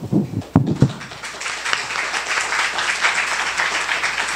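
A few knocks and bumps as the table microphone is handled and moved, then audience applause starting about a second in.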